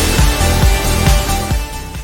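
Electronic outro music with a steady bass beat.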